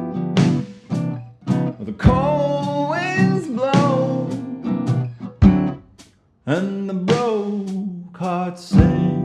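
Acoustic guitar strumming chords, with a melody line that bends and slides in pitch over them, stopping briefly about six seconds in.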